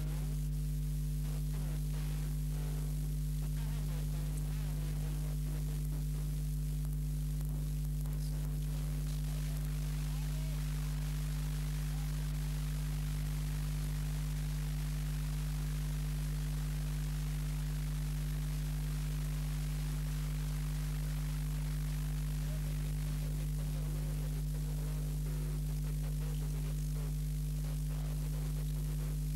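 Steady electrical mains hum with a faint hiss, with no other sound: the hum of an old silent home movie's tape transfer.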